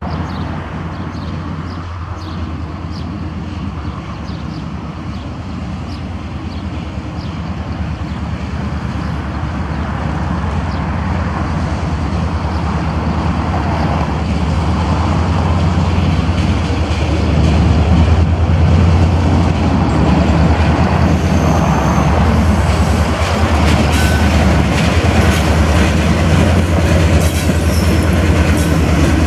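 Diesel locomotive of Renfe series 310 drawing a train of tank wagons slowly closer: a steady low engine drone that grows louder over the first two-thirds, then holds. In the later part there are wheel clicks and a few short squeals from the wagons' wheels.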